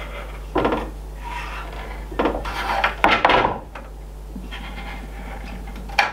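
A few sharp knocks and clatters of food-decorating pens and cookies being handled on a wooden board with a wire cooling rack, over a steady low hum.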